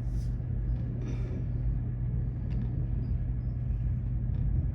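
Steady low vehicle rumble with a constant deep hum.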